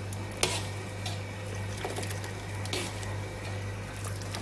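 A few light clicks of kitchen utensils or cookware over a steady low hum in a kitchen.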